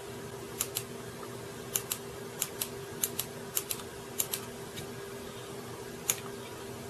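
Sharp computer clicks in quick pairs, six pairs within about four seconds and then one single click, over a steady low electrical hum.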